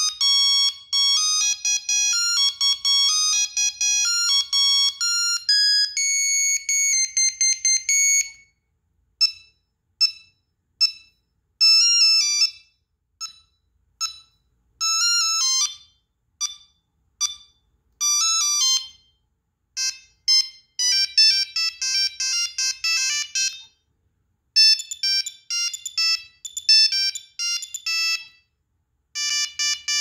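A Nokia 3390 mobile phone plays its built-in monophonic ringtones one after another as previews, in bright single beeping notes. A busy melody comes first. Then come spaced-out short staccato notes, then faster tunes, each cut off by a brief silence before the next ringtone starts.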